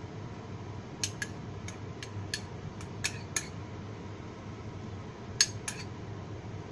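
Metal spoon clinking and scraping against a small ceramic bowl as gravy is spooned out: about ten light clinks at uneven intervals, the sharpest a little past the middle.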